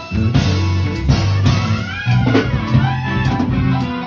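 A band playing loud backing music, with a strong bass line, guitar and drums.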